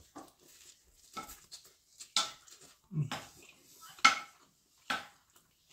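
Stainless-steel chopsticks and a fork clinking against a plate of fried instant noodles while eating, a sharp clink about once a second, the loudest about four seconds in.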